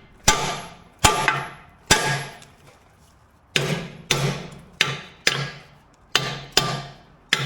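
Hammer blows on steel, driving a part into the skid steer's quick-attach pivot: about ten sharp strikes, each with a short metallic ring, in two runs with a brief pause between them.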